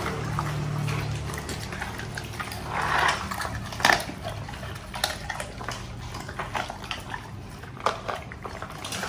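Pit bull-type dogs chewing and gulping raw chicken from steel bowls: wet, smacking eating noises with a few sharp cracks and clicks scattered through. A low steady hum sits under the first two seconds or so.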